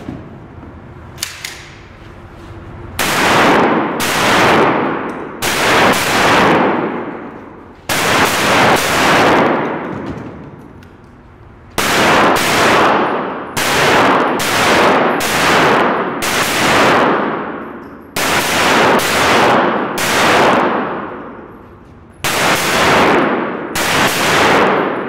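A competitor's gun firing at a 3-Gun stage: about twenty gunshots, singly and in quick pairs at uneven intervals. Each shot trails a long echo off the walls of the indoor range.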